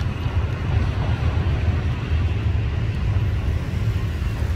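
Steady low rumble of a freight train rolling away across a steel truss bridge, hauled by a D19E diesel-electric locomotive.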